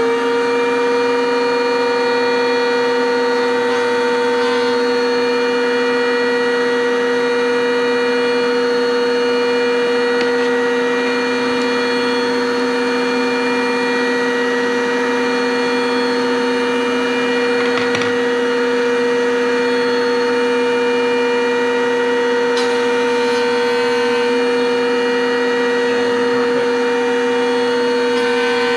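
Router at full speed with a steady high whine, chamfering the edge of an acrylic sheet. There is a brief faint knock about 18 seconds in.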